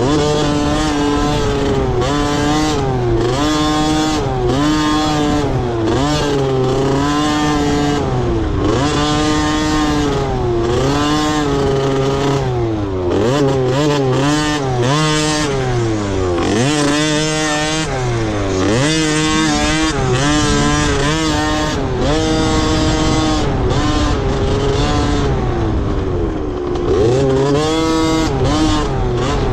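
Motocross dirt bikes racing. Their engines rev up and drop back over and over as the riders accelerate, shift and brake around the track, with more than one bike heard at once at times.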